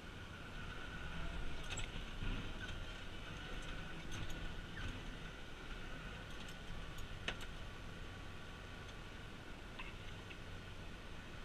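Farm machinery engine running steadily, a faint low hum, with a few scattered light clicks.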